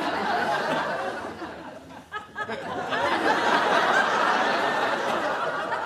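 Studio audience laughing, the laughter dying down about two seconds in and swelling up again a second later.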